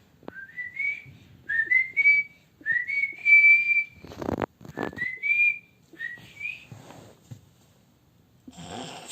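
A person whistling to call a pet back: about five short whistles, each sliding up in pitch, the middle one held longest and loudest.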